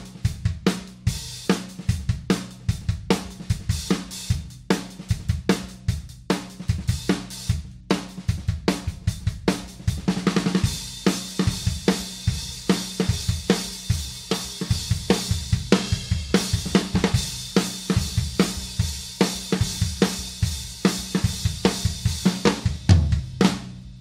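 Drum kit groove led by a pair of 16" Dream hi-hats, a Bliss bottom under an Energy top, with kick and snare underneath. About halfway through the hi-hat sound thickens into a steadier wash.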